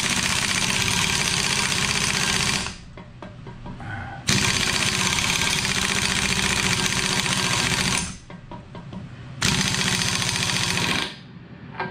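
Pneumatic impact wrench hammering on the pinion nut of a GM 12-bolt rear differential, driving it down toward crushing the pinion crush sleeve. It runs in three long bursts of rapid hammering, each a few seconds long, with short pauses between. At this air pressure it is not yet getting the nut to the point of crushing the sleeve.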